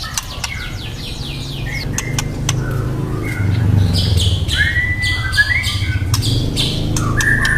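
Juvenile white-rumped shama calling: short whistled notes and quick rising chirps mixed with sharp clicks, over a low steady hum.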